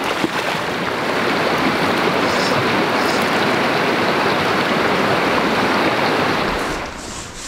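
Fast river water rushing over shallow gravel riffles, a steady loud rush that drops to a quieter level near the end.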